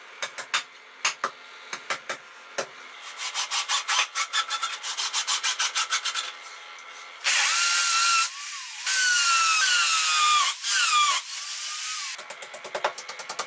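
Electric drill boring into the wall for about five seconds, its motor whine sagging and recovering in pitch under load and easing off briefly twice. Before it, a regular ticking beat of about four a second.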